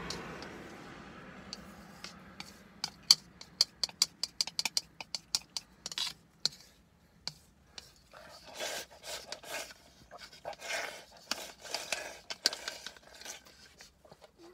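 Wooden chopsticks clicking and scraping against a rice bowl in a quick run of sharp clicks as noodles are scooped up. From about halfway the sound turns to slurping and sipping from the bowl held to the mouth. A low hum fades away at the start.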